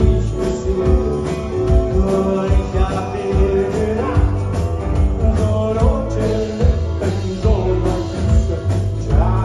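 A live band playing an upbeat rock-and-roll or country-style song with a steady beat and a singing voice.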